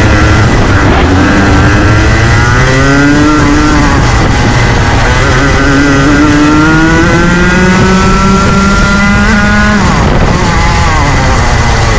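Rotax Junior two-stroke kart engine at race pace. Its pitch climbs as it accelerates, drops about four seconds in, climbs again through a longer stretch, then falls sharply near the ten-second mark as it slows, with a lower, steadier engine note underneath.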